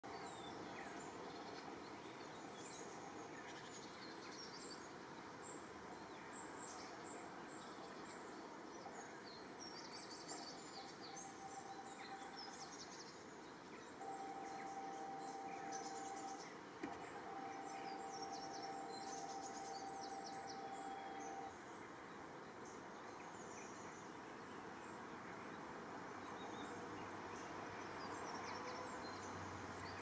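Small songbirds chirping and twittering in short scattered calls over a faint outdoor hiss. A steady, even tone sounds alongside them from about a third of the way in to about two-thirds, with a couple of short breaks.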